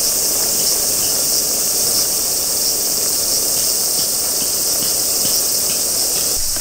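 Aluminium mess tin of rice boiling on a charcoal fire, a dense, steady bubbling and spitting under its rock-weighted lid. A steady chorus of insects sounds behind it.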